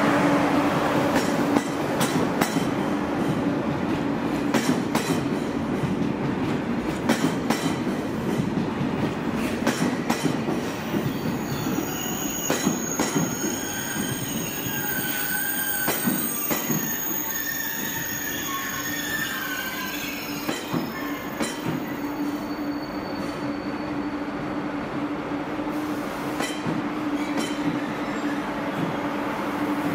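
A train rolling slowly through the station, its wheels clicking over rail joints and points. Wheel squeal rises in the middle, over a steady low hum.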